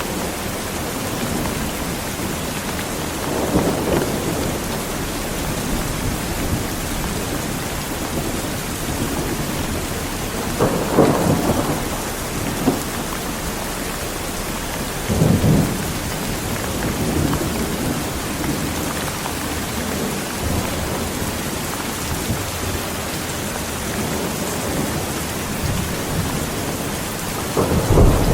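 Strong rain falling steadily, with thunder rumbling through it: short rolls about four, eleven and fifteen seconds in, and a louder, deeper rumble starting near the end.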